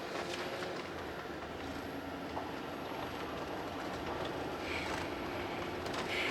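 Steady rumble of tyres and engine heard inside the cabin of a 2009 Chevrolet Tahoe with the 5.3 L V8 while it is driving.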